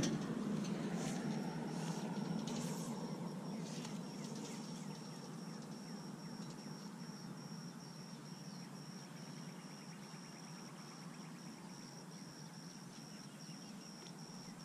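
An insect chirping in a steady, high-pitched pulsing trill of about three pulses a second, over a low wash of water and wind noise that fades during the first few seconds. A few light splashes or knocks come in the first four seconds.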